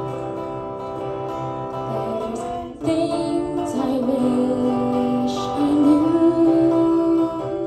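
A young woman singing live with electric guitar accompaniment, in long held notes that glide slowly in pitch. Near three seconds in the sound dips briefly before the next phrase.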